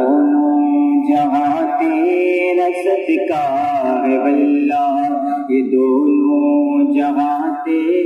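A man singing a naat, an Urdu devotional song, in long held notes that waver in pitch.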